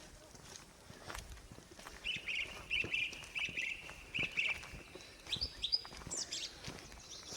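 Small birds singing: a run of short, quickly repeated chirps from about two seconds in, then a few higher notes near the end. Faint footsteps on the ground underneath.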